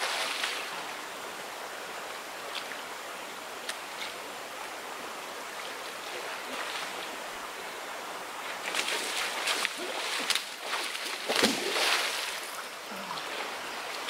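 Forest stream running steadily, with two louder bursts of water noise about nine and eleven seconds in.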